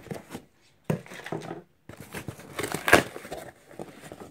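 Packaging being unwrapped by hand: irregular crinkling and rustling with scattered clicks, loudest about three seconds in.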